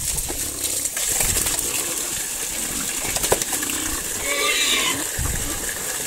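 Whey pouring and splashing from a hose into a muddy trough while a crowd of pigs jostle and slurp at it, with one short pig squeal about four seconds in.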